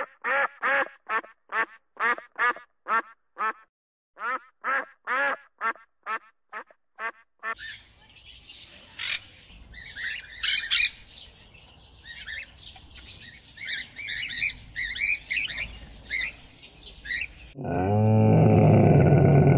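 Ruddy shelduck honking in short repeated calls, about two a second, then a blue-and-yellow macaw giving scattered harsh squawks, and near the end a Bactrian camel's loud, low, drawn-out groan.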